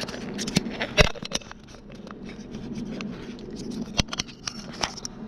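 Handling noise from a handheld camera: rubbing and scraping with scattered clicks, two sharp knocks standing out about a second in and about four seconds in, over a low steady hum.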